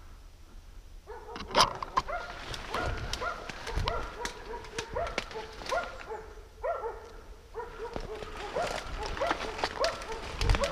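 Hunting dogs baying in a fast, even run of short, high yelping barks, about two a second, starting about a second in: the dogs giving tongue on a wild boar. A sharp snap about a second and a half in, and a low thump near the end.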